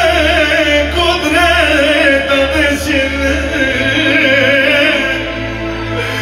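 Live amplified music from an electronic keyboard setup: a heavily ornamented, wavering melody line over a steady bass, whose bass note steps up about three and a half seconds in.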